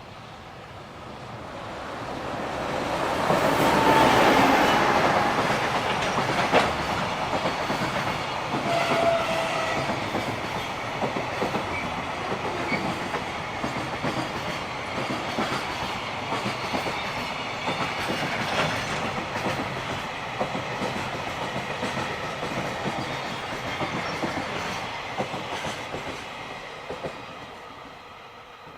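Freight train passing, its wagon wheels clattering over the rail joints. It builds to its loudest about four seconds in, clatters on steadily for about twenty seconds, then fades away near the end.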